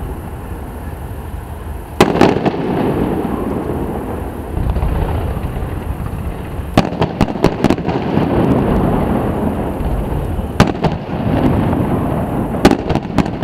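Aerial fireworks going off: a sharp bang about two seconds in, a quick run of cracks around seven seconds, another bang near eleven seconds and a few more near the end, over a continuous low rumble.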